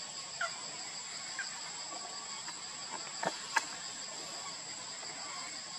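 Steady high-pitched insect drone made of two constant tones, with a few short sharp chirps and clicks through it, the sharpest about three and a half seconds in.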